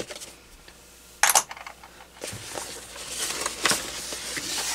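Paperboard phone box being opened by hand: a short, sharp rip as the seal sticker is cut about a second in, then continuous rustling and small clicks of the lid and inner packaging being lifted.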